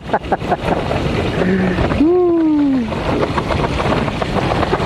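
Strong wind buffeting the microphone, a loud steady rush with crackling gusts. About two seconds in comes one brief falling voice-like call.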